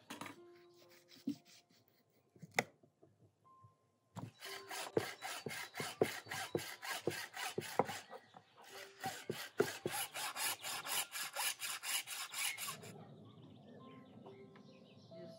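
Hand saw cutting through meat and bone on a wooden block in quick back-and-forth strokes, starting about four seconds in, pausing briefly near the middle and stopping near the end. Before it, a few sharp knocks of a knife cutting meat on a board.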